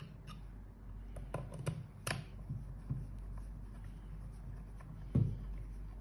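Small screwdriver turning screws in the plastic back housing of a handheld videoscope: scattered light clicks and scratchy ticks. A louder dull thump about five seconds in.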